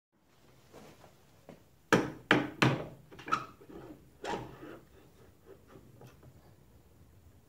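A spindle motor being seated in an aluminium clamp-style spindle mount by hand: three sharp knocks in quick succession about two seconds in, then a couple of lighter knocks and faint clicks and rubbing as it is positioned.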